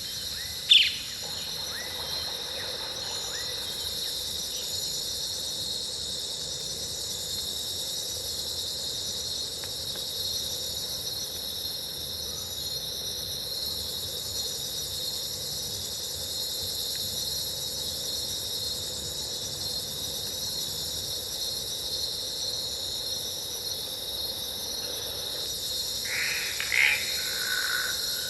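Jungle ambience sound effect: a steady chorus of insects chirring, with one short sharp animal call about a second in and a few louder calls near the end.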